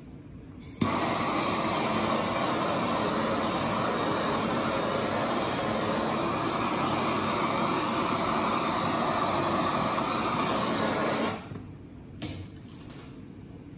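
Handheld gas blowtorch lit with a sudden start about a second in, then its flame rushing steadily as it melts and fuses encaustic wax on a panel, cut off abruptly near the end.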